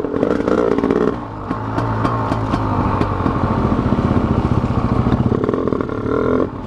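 KTM Freeride dirt bike engine revving high, then rolled off about a second in and running at lower revs before revving up again near the end. Short clatter and rattles from the bike bouncing over the rough trail run under it.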